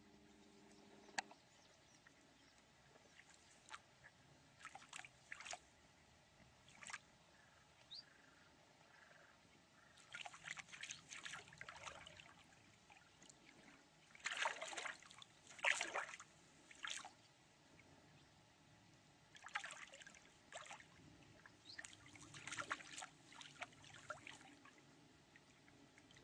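Faint water sloshing and splashing in short, irregular bursts, thickest in the second half.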